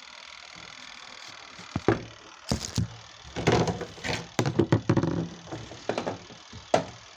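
Irregular knocks and rattling clatter of parts and tools being handled while a semi-automatic washing machine is taken apart for repair, starting about two seconds in and going on in quick, uneven hits.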